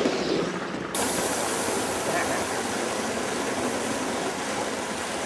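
Gauge 1 model train of coaches running along the track behind a live-steam locomotive: a steady rushing noise of wheels on rail, which changes abruptly about a second in.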